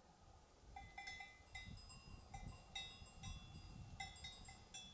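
Faint bells on a flock of sheep clinking irregularly at several different pitches, starting about a second in.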